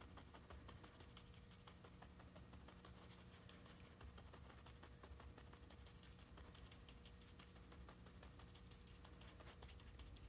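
Faint, rapid tapping and scratching of a paintbrush stippling acrylic paint onto canvas, over a low steady hum.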